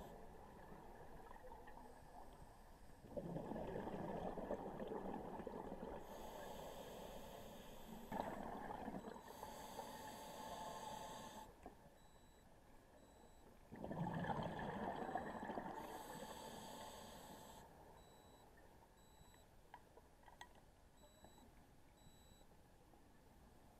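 Scuba diver breathing through a regulator underwater: three breaths, each a bubbling exhale rumble with a hissing inhale, about every five or six seconds, then quieter toward the end.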